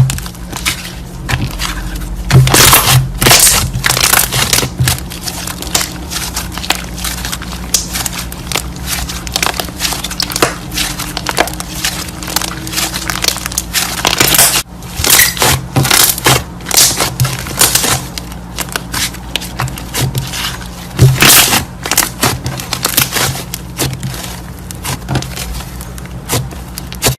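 Slime being squished and kneaded by hand: a dense, continuous run of crackling clicks and pops, over a steady low hum.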